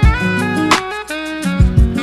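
Background music with a beat: a jazzy instrumental with steady held notes and drum hits, several of them in the second half.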